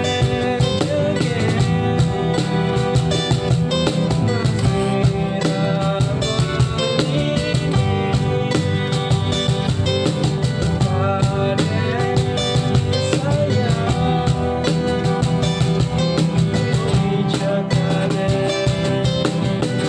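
Band music with guitar and drums playing continuously at a steady beat.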